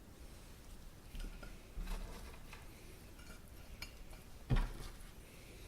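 Kitchen utensils clinking and knocking against dishes and a cutting board, a few light clicks and one louder thump about four and a half seconds in.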